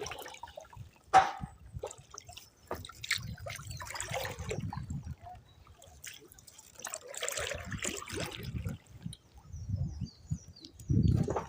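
Canoe paddle strokes: water swishing and trickling off the blade about every three to four seconds, with one sharp knock about a second in.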